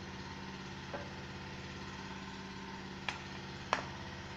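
Steel kitchen bowls clinking: three light metallic knocks, one about a second in and two close together near the end, as a small steel bowl of gram flour is emptied into a large steel mixing bowl and set back down. A steady low hum runs underneath.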